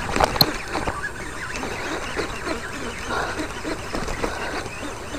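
Baitcasting reel being cranked hard, with uneven scratchy strokes from the turning handle and a sharp click about half a second in. The reel is under load from a hooked snakehead being hauled in through thick grass.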